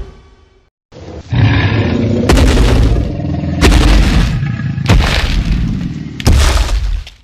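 Dinosaur roar sound effects: after about a second of silence, five loud, rough roars with a deep low end follow back to back, each cutting in abruptly.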